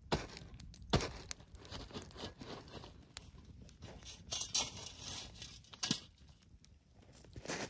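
Wood campfire burning: the log crackling and popping, with a louder rushing flare about four seconds in and sharp cracks about a second in and near six seconds.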